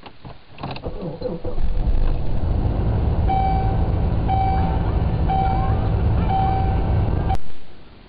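A car engine starts after a few clicks and runs steadily, while a dashboard warning chime beeps about once a second. Both cut off suddenly near the end.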